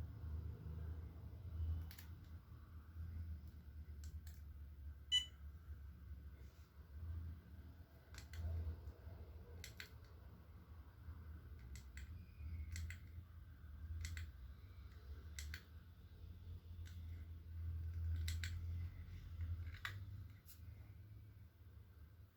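Irregular light clicks and taps from handling a fingertip pulse oximeter and its plastic packaging, with one short high beep about five seconds in, over a low steady hum.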